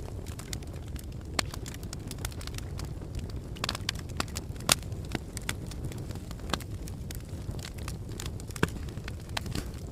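Wood fire burning in a fireplace, crackling with frequent sharp pops over a low steady rumble of the flames; the loudest pops come about halfway through and near the end.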